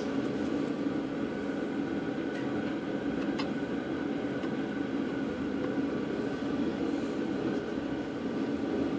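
A steady mechanical hum, with two faint clicks of metal horn parts being handled about two and three seconds in.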